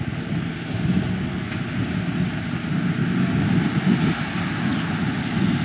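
Steady low engine rumble of street traffic.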